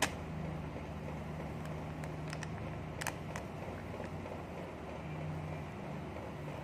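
A steady low mechanical hum, with a sharp tick at the start and a few faint ticks and plastic rustles as thick pancake batter is poured into a plastic piping bag.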